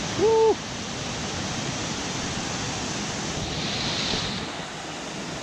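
Mountain stream cascading over rocks: a steady rush of water. Near the start a short pitched tone, about a third of a second long, rises and falls briefly above it and is the loudest moment.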